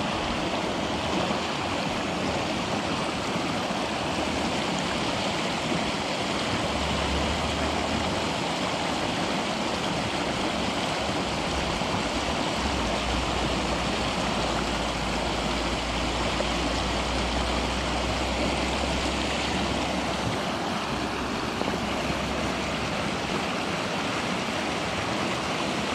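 Creek water rushing through a whitewater riffle: a steady, even rush.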